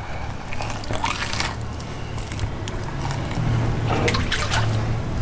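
Wet, squelching sounds of hands pulling and pushing a flounder's innards across a fish-cleaning table, over a steady low hum.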